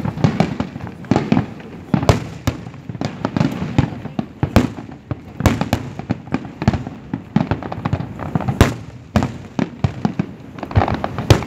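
Fireworks going off: a dense, irregular run of bangs and crackles, often several a second, with a few louder booms standing out.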